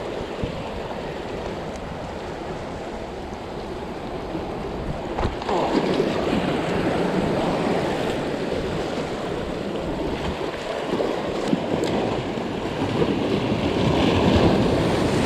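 Sea waves surging and washing over shoreline rocks, swelling louder about five seconds in, with a single knock just before the swell and some wind on the microphone.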